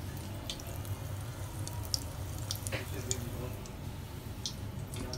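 Hand pressing and turning chicken pieces in dry breadcrumb coating in a steel bowl: faint scattered crackles and ticks over a steady low hum.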